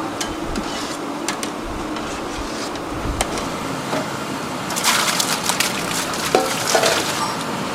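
Crisp crackling and snapping, like something being crushed or broken, over a steady background noise, with a dense run of crackles about five seconds in.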